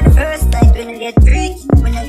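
Background music: a hip hop track with a deep, falling kick drum about twice a second.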